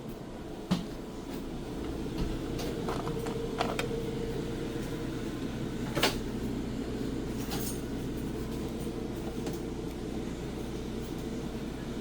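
A steady low mechanical hum of running machinery, with a few sharp knocks, the loudest just under a second in and about six seconds in.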